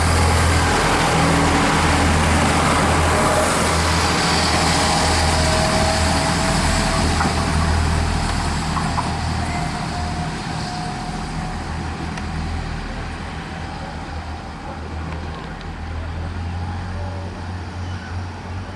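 Irish Rail 22000-class InterCity diesel railcar running past, a loud steady rumble of engines and wheels on the rails that fades away over the first half, with a faint tone falling slowly in pitch as it goes. Later a 29000-class diesel commuter railcar approaches, quieter.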